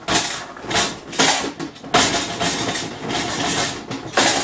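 Popped corn being dumped out of a tipped stainless-steel popcorn-machine kettle: a series of rustling, rattling pours, about six in a row, some lasting nearly a second.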